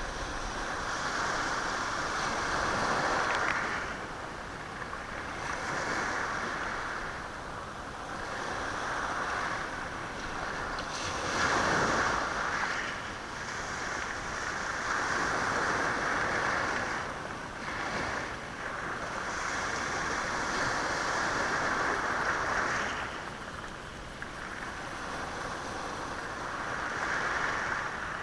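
Sea waves washing over a stony shore, swelling and falling back every few seconds, with the stones rattling in the surf.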